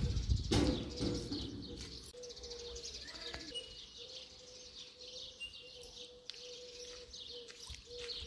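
Small birds chirping and twittering in short high calls over a faint steady hum. The first second holds a louder low rumble.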